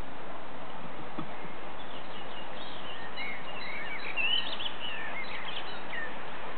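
Birds chirping in quick, varied short calls, most of them in the middle of the stretch, over a steady background hiss.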